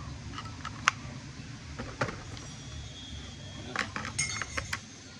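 Handheld fetal Doppler monitor's speaker giving a low rumbling static, broken by scattered sharp clicks and crackles.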